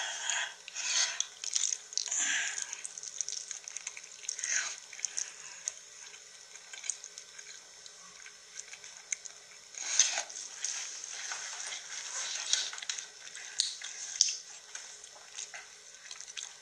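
A person slurping and chewing noodles, wet mouth sounds in irregular bursts, loudest about ten seconds in.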